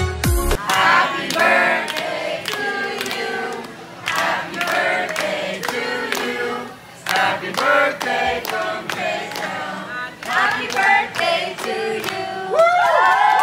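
A group of restaurant staff singing a birthday song together and clapping along in a steady beat. It ends with a few voices cheering in high, sweeping cries.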